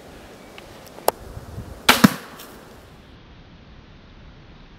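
Scoped crossbow firing: a sharp snap of the shot about two seconds in, with a second crack a moment after it, preceded by a light click about a second in.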